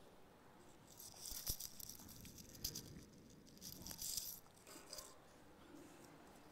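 Faint rustling and rattling in a few short clusters, mostly between one and four seconds in, like the handling noise of a phone as it is carried and panned while filming.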